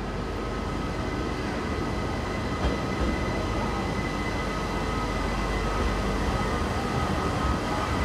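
Red RBS electric commuter train pulling into an underground station platform: a steady rolling rumble with a few steady high tones held over it.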